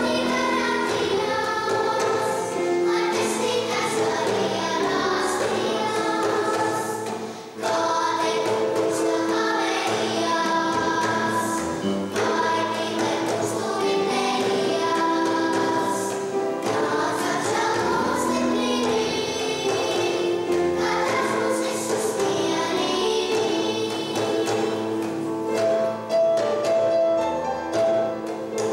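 A young children's choir singing a song together, with one short break between phrases about seven seconds in.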